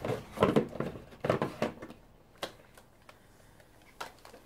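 Handling noise from a resin ball-jointed doll being turned and posed. It starts with a couple of seconds of rustling, then comes a few sharp clicks as its hard resin parts knock together.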